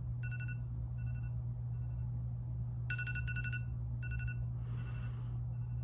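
Phone alarm ringing: quick runs of high electronic pips about once a second, with louder runs near the start and about three seconds in, over a steady low hum.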